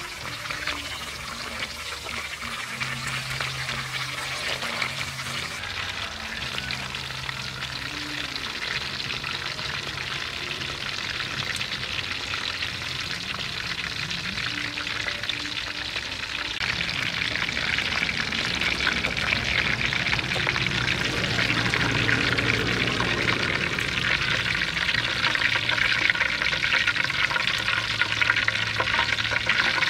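Pig intestine pieces deep-frying in hot oil in a wok: a dense, steady crackling sizzle, getting louder about halfway through, as they are turned with metal tongs and fried until crunchy.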